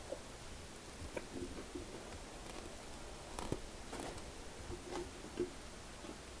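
A person chewing and biting into chicken wings, with scattered soft mouth clicks and smacks.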